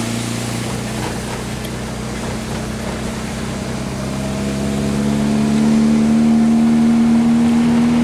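Car engine running, heard from inside the cabin while driving on a dirt road, with a steady haze of road noise. Past the halfway mark the engine note rises gradually and grows louder as the car picks up speed.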